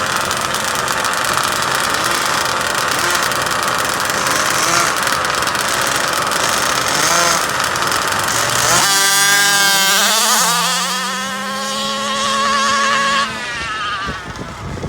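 Gas-powered RC car engines running and revving. About nine seconds in, one engine revs up quickly to a high, steady pitch, holds for about four seconds, then cuts off suddenly.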